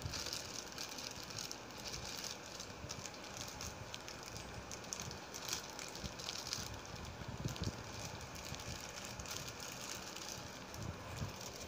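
Clear plastic bags crinkling and rustling as they are handled and pulled open, with a few louder crackles around the middle.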